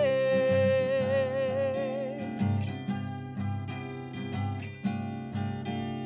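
Acoustic guitar strummed in a steady rhythm while a man's voice holds the last sung note with vibrato for about two seconds, then the guitar carries on alone.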